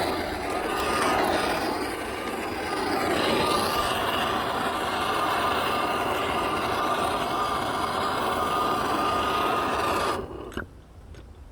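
Handheld plumbing soldering torch burning steadily while heating a copper joint on a tub/shower valve, then shut off suddenly about ten seconds in.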